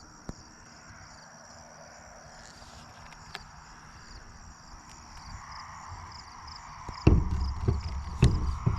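Insects trilling steadily in the background, then from about seven seconds in a run of loud, irregular low knocks and rumbles.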